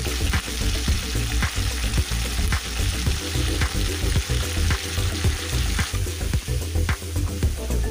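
Raw chicken pieces frying in hot oil with fried onions in an aluminium kadai, a steady sizzle, turned now and then with a metal spatula.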